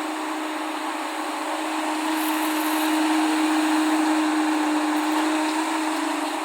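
Excavator's diesel engine running with a steady hum and a hiss of noise, growing louder about two seconds in and easing back near the end as it works.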